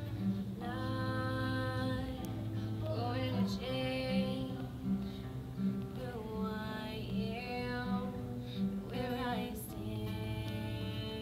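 A woman singing to her own strummed acoustic guitar, holding long notes over a steady strumming pattern.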